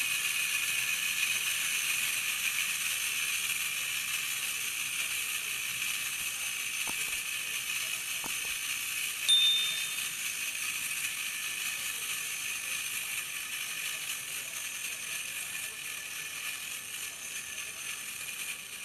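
Clockwork motor of a tin wind-up toy robot running, a steady high whirr of fast clicking gears that slowly grows quieter as the spring runs down. A short high ding sounds about halfway through.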